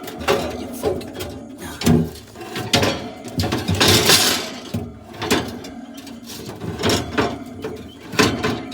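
Irregular knocks, scrapes and rattles of objects being handled. The heaviest swells come about two and four seconds in, and again near the end.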